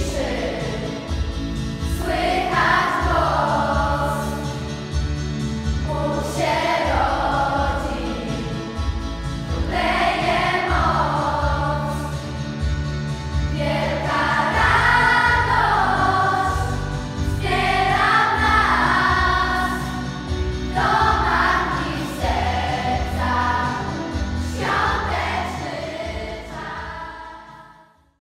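Children's school choir singing a Polish Christmas carol (kolęda), with steady low notes underneath; the sound fades out near the end.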